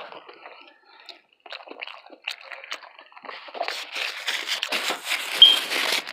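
Close-up mouth sounds of a person eating a taco: wet chewing and crunching with scattered clicks, busier and louder in the second half. A brief high squeak sounds near the end.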